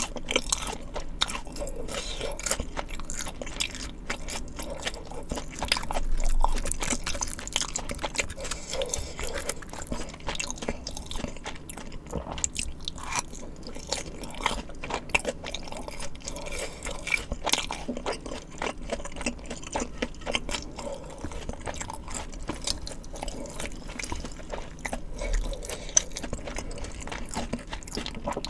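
Close-miked eating sounds: continuous chewing with crunchy bites and wet mouth noises from spicy rice cakes and crispy fried food.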